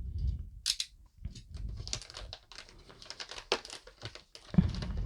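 Product box and its packaging being opened by hand: irregular crinkling, rustling and tearing, with sharp clicks and a thump about four and a half seconds in.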